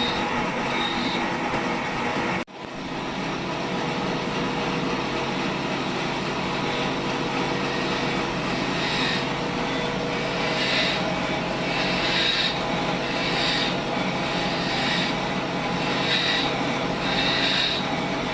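Sawmill saw cutting through dry wood as the trolley carries the log, a steady grinding rasp with the machine's running hum underneath. It breaks off abruptly for an instant about two and a half seconds in, then carries on with a brighter hiss surging every second or so.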